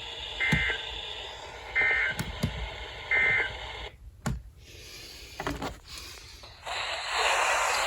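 Emergency Alert System end-of-message data bursts: three short, identical digital warbles, about a second and a half apart, closing the flash flood warning broadcast. After them the radio audio drops out with a few clicks, and louder program audio comes in near the end.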